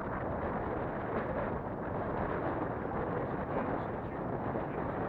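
Strong wind buffeting the microphone: a steady, low rumbling roar.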